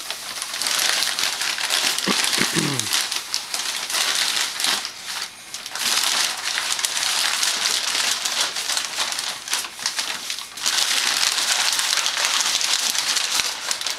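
A large sheet of brown packing paper crinkling and rustling as it is waved and handled, in loud stretches broken by a couple of brief pauses.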